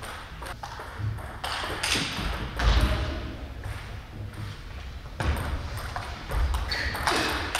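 Table tennis ball clicking sharply off the paddles and the table, first a few scattered bounces and then a quicker back-and-forth rally in the second half, with a few low thuds underneath.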